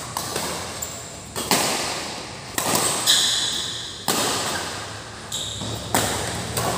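Badminton rackets striking a shuttlecock in a doubles rally, a sharp hit every second or so, each ringing briefly in the hall. Short squeaks of court shoes on the floor come between the hits, about halfway through and again near the end.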